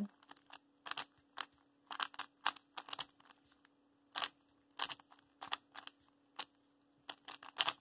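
Plastic 3x3 speedcube being turned by hand: a string of short, sharp clicks as the layers snap through separate moves, some in quick clusters, at irregular spacing.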